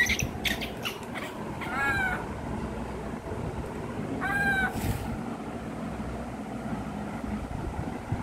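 Baby monkey calling: a few short squeaks in the first second, then two longer high-pitched cries, about two and about four and a half seconds in.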